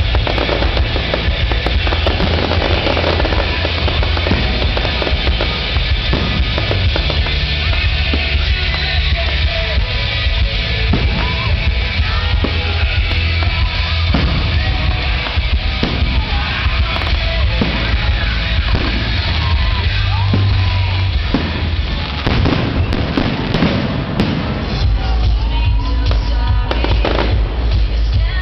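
A fireworks display: repeated sharp bangs and crackling bursts in quick succession, coming thickest near the end, heard together with loud music that has a heavy bass.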